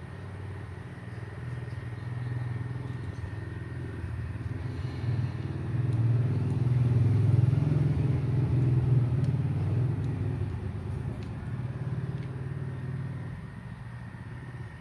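A motor vehicle's engine passing by, a low rumble that swells to its loudest about halfway through and then fades away.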